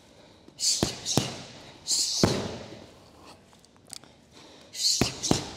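Boxing gloves and a shin striking Thai pads in a hook, cross, switch kick combination. Two quick punch smacks come about a second in, a heavier kick impact just after two seconds, then two more punch smacks near the end. Short hisses, the striker's sharp exhales, come before each group of strikes.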